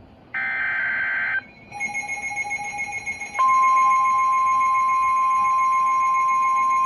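NOAA Weather Radio emergency alert: a roughly one-second burst of SAME digital header tones, then about three and a half seconds in the steady single-pitch 1050 Hz warning alarm tone sounds, signalling a warning such as a severe thunderstorm warning.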